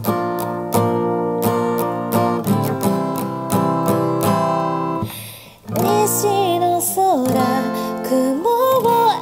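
Acoustic guitar strummed in steady chords. The sound dies away briefly about five seconds in, then a voice begins singing over the guitar.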